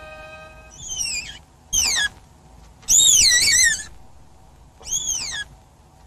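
A spotted deer fawn calling: four high, thin, squealing cries. Each rises and falls in pitch, and the third is the longest and most wavering, lasting about a second.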